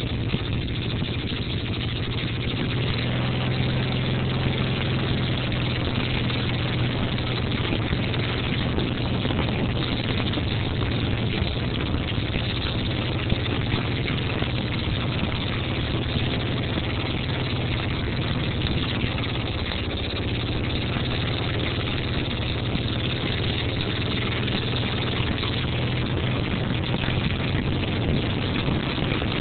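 Farm tractor engine running steadily at working speed while pulling a hay rake.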